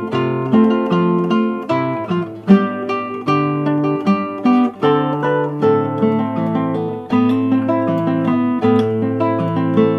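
Music: an acoustic guitar playing a run of plucked notes, each one struck and left to ring.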